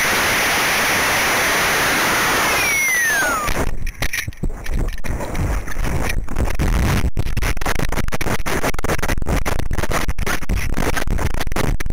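Onboard microphone of an Estes Astrocam model rocket launching on a B6-4 motor: a loud, steady rush of motor thrust and airflow, with a falling whistle about three seconds in. After about four seconds it turns to choppy, gusting wind noise with scattered knocks as the rocket coasts.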